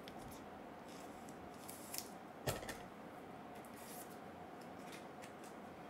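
Faint handling of trading cards, with two short light clicks about two seconds in as cards are moved and set down.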